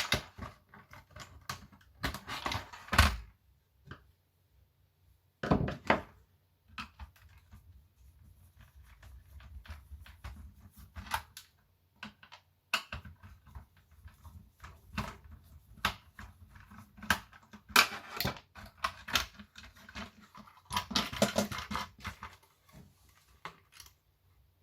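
Plastic casing of a landline telephone being handled and taken apart: irregular clicks, knocks and clattering of plastic parts, with a few louder bursts of handling.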